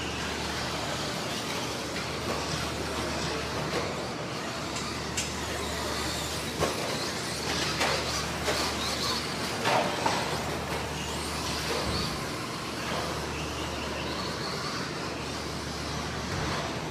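Radio-controlled stock-class racing trucks running on a dirt track. There is a steady mix of motor whine rising and falling and tyre noise, with several sharp knocks, bunched around the middle, from trucks landing and hitting the borders.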